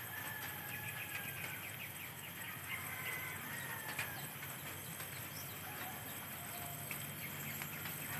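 A rooster crowing, one long drawn-out call in the first two seconds and a shorter one about three seconds in, over small birds chirping.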